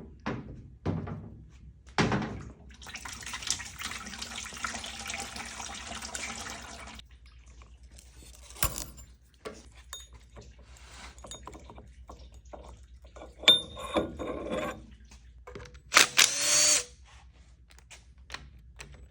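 Cordless power tool spinning out bolts on a 68RFE transmission pan: first a run of about four seconds, then short bursts near the end, with knocks and clunks of tools and parts in between.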